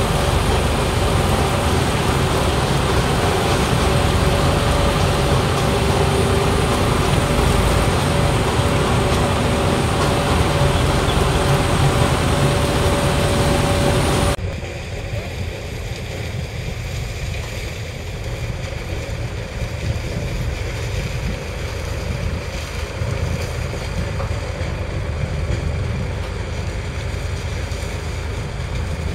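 Case sugarcane harvester and New Holland 3630 tractor engines running steadily together while cutting and loading cane. About halfway through the sound cuts suddenly to a quieter stretch of wind buffeting the microphone over a tractor engine running.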